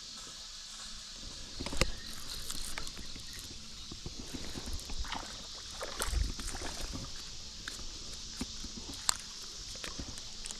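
Light water sloshing with scattered clicks and knocks of handling, and two louder thumps about two and six seconds in, over a steady high drone of insects.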